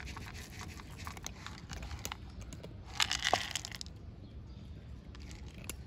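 Dry cat kibble poured out of a container onto a concrete curb, the pellets clicking and scattering, with a louder rattling pour about three seconds in.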